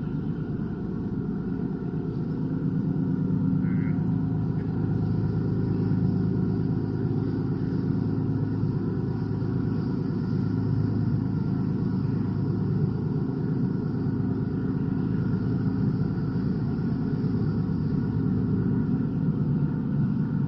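A ferry's engine running with a steady low drone.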